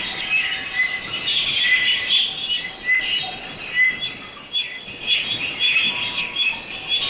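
Several small birds chirping and twittering together, a dense overlapping chorus of short high chirps and whistles that never pauses.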